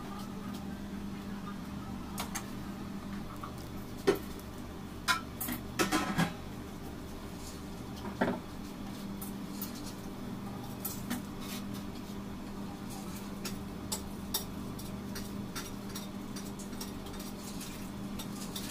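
Metal kitchen utensils clinking and knocking a few times, in a cluster about four to six seconds in and once more around eight seconds, over a steady low hum.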